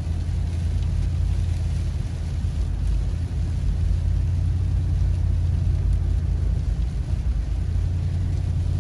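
Steady low road and engine rumble inside the cabin of a 2008 Lexus GX470, its V8 cruising on a wet highway.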